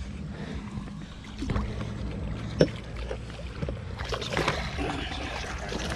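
Water sloshing and splashing as a hooked fish is played up to a landing net held in the water, with a sharp knock about two and a half seconds in.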